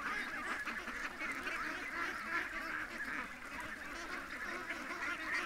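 A flock of domestic ducks calling, many overlapping calls at once in a steady chatter as the birds file out of their pen.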